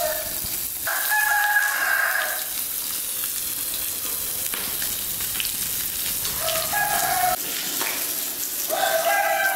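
Fish fillets sizzling steadily on a cast-iron grill pan. Over this, roosters crow several times: once about a second in and twice more near the end.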